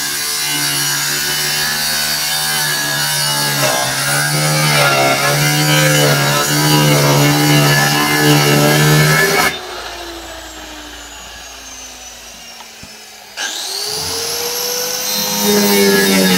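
Handheld electric circular saw cutting plywood sheet, its motor pitch wavering as the blade loads in the cut. About nine and a half seconds in it is switched off and winds down with a falling whine. About four seconds later it starts up again with a rising whine and cuts on.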